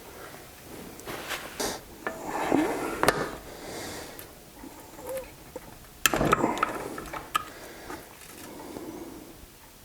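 Tools and metal engine parts being handled during a small-engine teardown: scattered clanks, knocks and scrapes in a few clusters, the loudest about two and a half seconds in and again about six seconds in.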